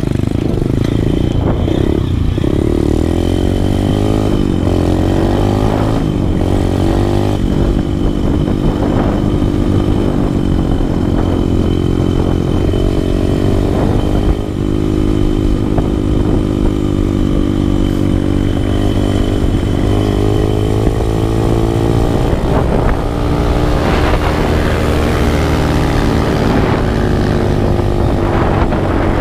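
Dirt bike engine running under load on a rough trail, its revs rising and falling over and over as the rider works the throttle.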